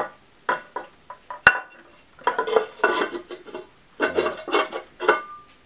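Ceramic pet fountain parts knocking and clinking together as the glazed top is fitted back onto the bowl: a series of light knocks and scrapes of ceramic on ceramic. The sharpest knock comes about one and a half seconds in, and there is a brief ring near the end.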